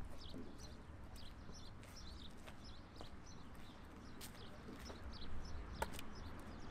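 Faint outdoor ambience with a few scattered footsteps of sneakers on the track and small birds chirping.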